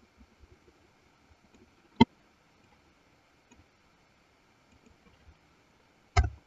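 Faint room hiss broken by a single sharp computer mouse click about two seconds in, and a louder thump near the end.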